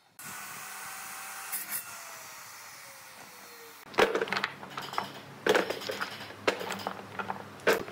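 A compound miter saw's motor running, its whine falling slowly in pitch as it winds down. About four seconds in, small cut pine blocks knock and clack against each other as they are handled on a wooden worktable, in several sharp knocks.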